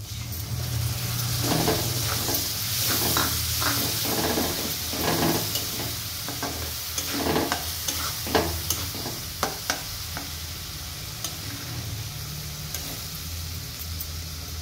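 Onions and freshly ground masala paste sizzling in hot oil in a kadhai while a spatula stirs and scrapes the pan. The sizzle is strongest in the first few seconds and then settles, with a few sharp taps of the spatula on the pan near the middle.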